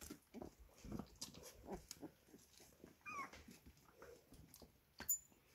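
25-day-old puppies wrestling and mouthing each other: faint scuffling and small puppy noises, with one short high squeak about three seconds in and a sharp click near the end.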